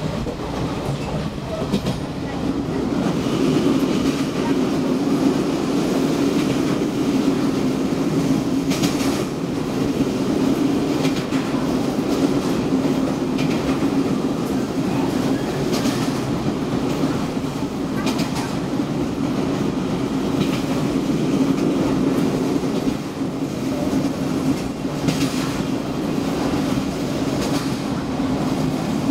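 Passenger train heard from on board as it runs over a steel railway bridge: a steady, loud rumble with occasional sharp clacks of the wheels over rail joints.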